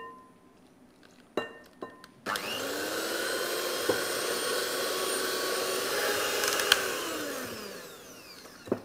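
A few light knocks, then an electric hand mixer starts up about two seconds in, its pitch rising as it gets up to speed. It runs steadily, whipping powdered whipped-cream mix with cold milk in a glass bowl, then winds down and stops near the end.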